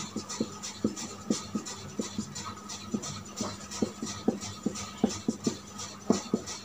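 Felt-tip marker writing on chart paper: short, irregular taps and scrapes, a few a second, over a faint steady hum.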